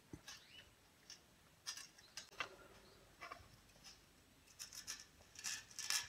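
Faint, scattered small metal clicks and scrapes from tweezers and a hemostat clamp working the thin resistance wire of a hair dryer's heating element, as a broken wire is joined.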